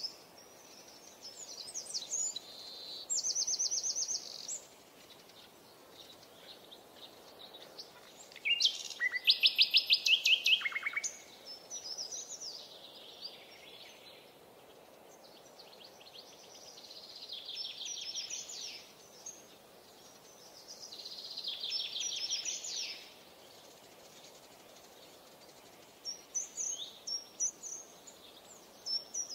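Songbirds singing: short chirping phrases and trills every few seconds, the loudest a rapid trill of quickly repeated notes about nine to eleven seconds in, over a faint steady hiss.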